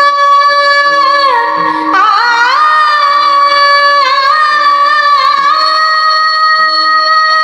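A woman singing a Marathi devotional abhang in long, high held notes that dip and waver in ornamental turns twice before settling on a steady note, with a quieter low accompaniment note underneath.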